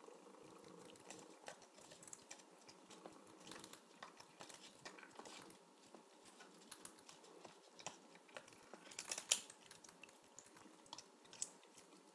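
A cat crunching and chewing crisp corn chips: irregular small crunches, with a louder run of crunches about nine seconds in.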